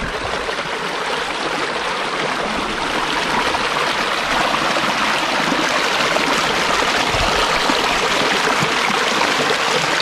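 Steady rushing, water-like noise that grows a little louder over the first few seconds and then holds steady.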